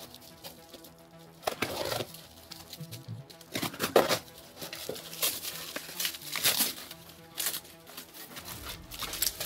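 Plastic stretch film and packing tape being cut with scissors, torn and crinkled off a parcel in short irregular bursts, over faint background music.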